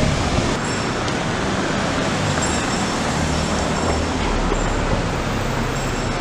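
Street traffic noise: a motor vehicle's engine running close by over a steady hiss of street sound.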